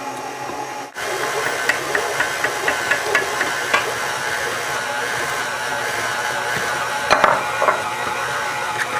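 KitchenAid Artisan stand mixer running on low with its flat beater, a steady motor whine with light rattling and ticking as flour is gradually worked into the batter to form cookie dough. A few louder knocks come about seven seconds in.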